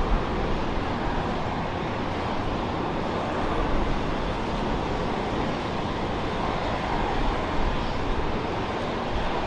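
Jet airliner engines running with a steady rumble and a faint steady whine, heard across open ground.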